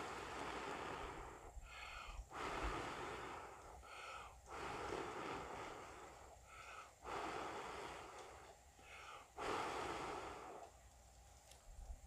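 A person blowing hard into a smouldering grass tinder ball to coax its char-cloth ember into flame: about five long rushing blows, each followed by a quick gasping breath in.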